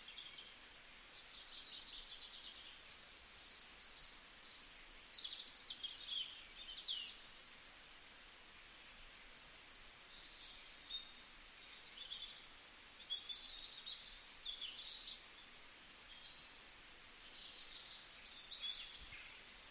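Small birds chirping and twittering: many short, high calls in clusters, busiest about a third of the way in and again past the middle, over a faint steady hiss.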